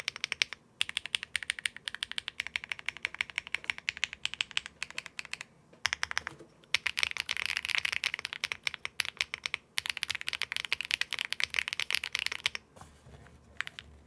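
Fast typing on an Akko M1 V5 mechanical keyboard with stock Akko Cilantro long-pole tactile switches: rapid runs of keystrokes with brief pauses about a second in and again around six seconds. The typing thins to a few scattered keystrokes near the end.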